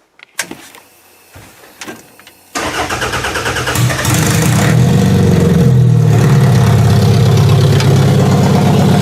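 A 1997–1999 Toyota Camry engine being started: a few light clicks, then about two and a half seconds in it cranks and catches, and after about a second it settles into a steady idle. The engine is starting and running on a stand-alone wiring harness.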